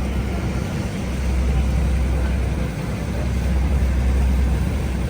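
Sportfishing party boat's engine running steadily, a low rumble.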